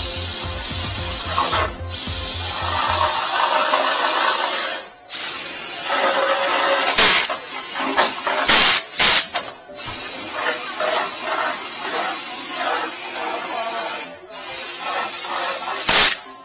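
Cordless drill spinning a flexible drain-cleaning shaft inside a drain pipe to scour out hardened epoxy. It runs with a steady high whine in stretches, stopping and restarting about five times, with a few sharp knocks between runs.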